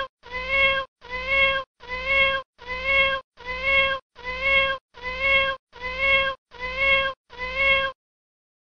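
A cat's meow, the same short high call repeated ten times at an even pace of a little over one a second, then stopping shortly before the end.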